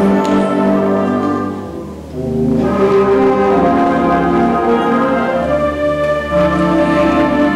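Concert band playing sustained chords, with brass prominent. The band eases off about two seconds in, then comes back in at full strength.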